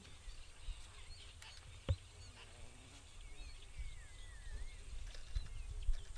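Faint bird calls, a few wavering whistled notes, over a low rumble, with a sharp thump about two seconds in and another near the end.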